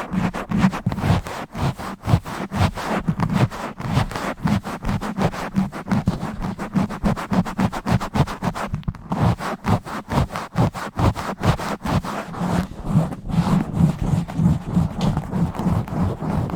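Fingers scratching and rubbing fast and roughly right on a microphone, with many quick strokes a second over a deep, boomy undertone.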